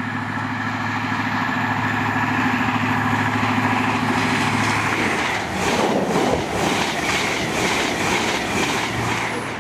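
Diesel passenger train passing at speed: a steady engine hum for the first half, then a quick run of wheel clicks over the rail joints as the carriages go by.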